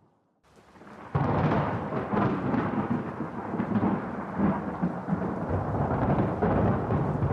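Thunder: after a moment of near silence, a long rolling rumble breaks in abruptly about a second in and keeps rumbling.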